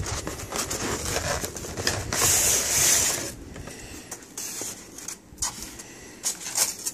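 Styrofoam packaging insert being slid out of a cardboard toy box and handled: rustling and rubbing, with a louder scraping hiss about two seconds in that lasts about a second, then lighter scrapes and clicks of foam on cardboard.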